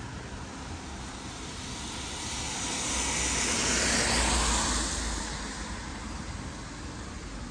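A vehicle passing close by: its noise swells to a peak about four seconds in and fades again within a couple of seconds.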